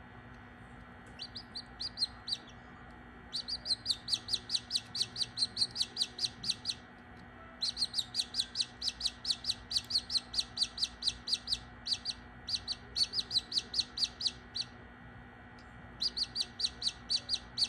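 Australorp chick peeping from inside its part-opened shell while it is helped to hatch: rapid runs of short, high, falling peeps, about five a second, in bouts broken by brief pauses.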